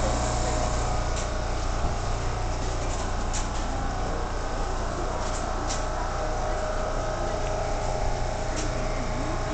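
R179 subway train running along the track, heard from inside the car: a steady low rumble with a steady whine and a few brief clicks.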